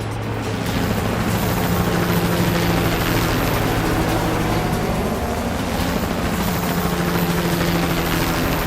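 Helicopter flying overhead: steady rotor chop with an engine hum that comes in about half a second in.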